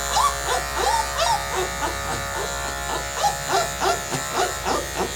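Electric dog grooming clippers running with a steady buzzing hum during a sanitary trim. A rapid string of short chirps, about three a second, sounds over the hum.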